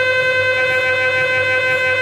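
Gradient coils of a Philips 1.5 T MRI scanner sounding a loud, steady buzzing tone with many overtones while a scan sequence runs, here in the opening shim and Smart Spine survey stage of a cervical spine exam.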